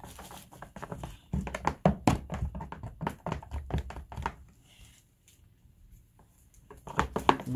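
A plastic utensil stirring paint into shaving cream in a plastic storage tub, with many quick taps and knocks of the utensil against the tub. The tapping stops for about two seconds about five seconds in, then starts again briefly.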